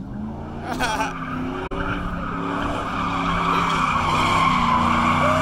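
Pickup truck doing donuts on asphalt, its tires screeching over the engine running hard. The screech builds and gets louder over the last few seconds.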